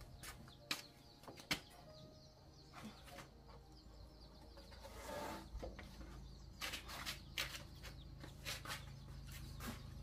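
A heavy wooden plank being handled on a concrete floor: scattered light knocks, and a short scrape about halfway through as it is lifted upright.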